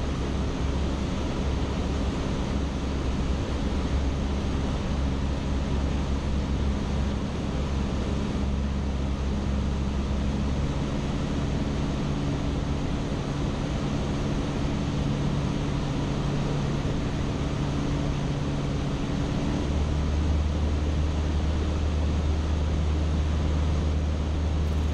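Cabin noise of a Cessna 152 in cruise flight: the steady drone of its four-cylinder Lycoming O-235 engine and two-bladed propeller mixed with airflow rush, its tone shifting slightly a couple of times.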